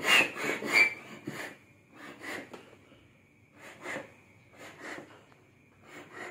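Bellows foot pump inflating an inflatable boat, each stroke pushing a rush of air through the hose. Several quick strokes come in the first second and a half, then slower ones about once a second.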